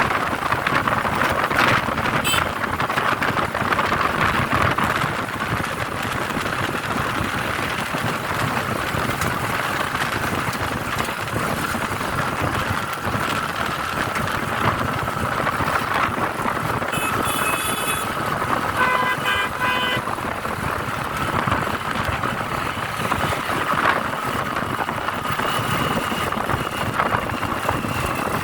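Steady road and engine noise of a moving vehicle in highway traffic, with vehicle horns honking briefly twice, one right after the other, about two-thirds of the way through.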